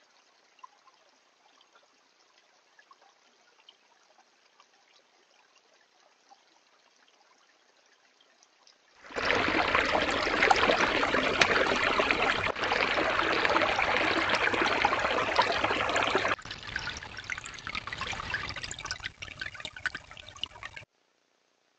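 Small creek water trickling and running over stones, faint at first, then much louder from about nine seconds in, dropping partway about sixteen seconds in and cutting off just before the end.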